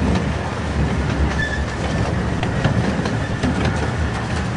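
Small open passenger cars of a steam-hauled park railway rolling along the track: a steady low rumble of steel wheels on the rails, with scattered sharp clicks over the rail joints, more of them near the end.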